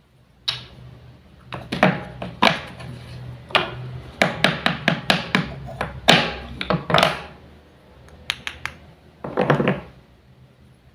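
Wooden toy food and a wooden toy knife knocking and clacking against each other and a hard surface. The pieces are being cut apart and set down, in a series of sharp knocks and short clatters that come thickest in the first two-thirds, with a few more knocks near the end.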